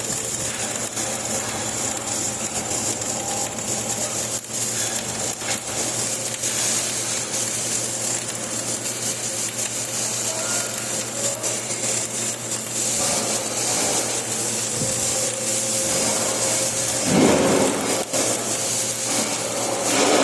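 Flux-cored arc welding: the arc crackles steadily over a low hum, with a brief louder rasp near the end.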